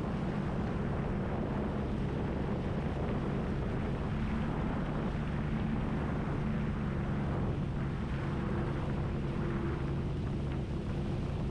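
Jet ski engine running steadily at low speed while cruising, with a constant low drone and water and wind noise around it.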